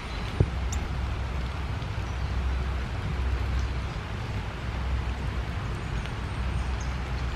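Steady hiss of rain with a low rumble underneath, and one sharp tap about half a second in.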